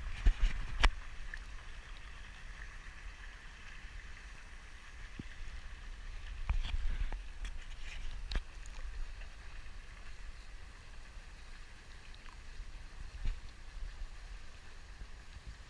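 Pool water lapping and gurgling around a camera held at the surface as it is pushed through the water, over a low rumble. A few sharp knocks from the camera housing, the two loudest within the first second.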